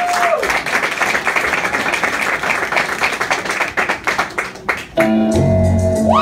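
Crowd clapping and cheering, with one long whistle that ends just after the start. The applause thins out, and about five seconds in, music starts with steady low bass notes under a held tone, met by a rising whoop from the crowd near the end.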